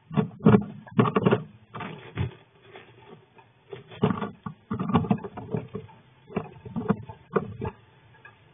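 A flying squirrel scrabbling and scratching about inside a wooden nest box, its claws scuffing on the wood in irregular bursts that thin out near the end.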